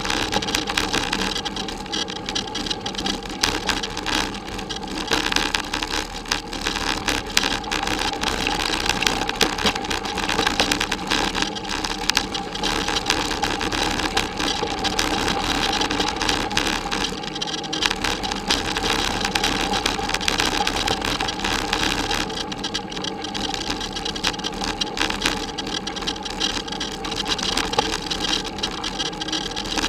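Bicycle riding over a bumpy dirt forest track, heard through a bike-mounted camera: steady rumbling tyre noise and constant small rattles and jolts of the bike and camera mount.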